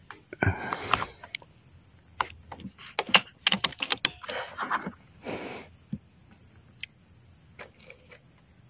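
PCP air rifle being handled between shots: a run of sharp metallic clicks and short sliding scrapes, busiest in the middle, as the bolt is cycled to load the next pellet.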